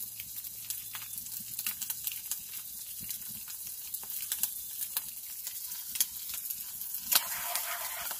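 Sausage and eggs sizzling in a skillet over a wood fire, with scattered sharp pops. About seven seconds in the sound grows fuller as the eggs are stirred and scrambled in the pan.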